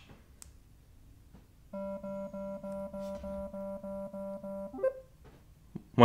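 Apple Watch Series 7 speaker playing its water-ejection tone as water lock is turned off by holding the digital crown. A low buzzing tone pulses about three times a second for about three seconds, pushing water out of the speaker, and ends with a short blip.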